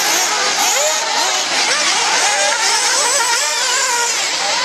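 Several 1/8-scale nitro RC buggies' small two-stroke glow engines revving up and down together, each pitch rising and falling as the cars accelerate and brake around the track.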